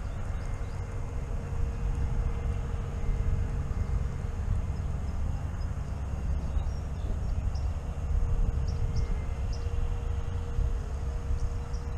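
Steady low rumble with a faint even hum above it, and a few faint high chirps in the second half.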